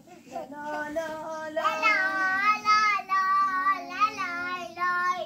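A child singing in a high voice, holding long, wavering notes.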